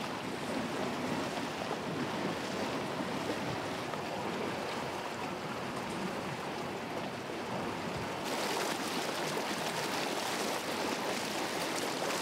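Water rushing and splashing along the hull and in the wake of a battery-electric motorboat under way, with wind on the microphone and no engine note. About eight seconds in the wash turns louder and hissier.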